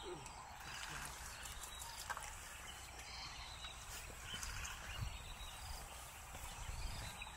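Faint outdoor ambience: a steady low background noise with a few short, faint bird chirps and scattered soft clicks.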